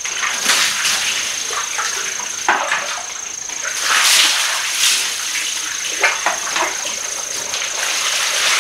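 Water scooped and poured from a plastic wash basin over a soaped body, splashing onto a tiled bathroom floor. The biggest pour comes about four seconds in, with smaller scoops and splashes before and after.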